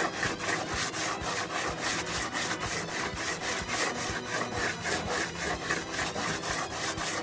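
Wooden sanding block with sandpaper rubbed by hand in quick, even back-and-forth strokes over a cured fibreglass boat gunwale, several strokes a second. The block is knocking down the high spots of the laminate to even out the edge.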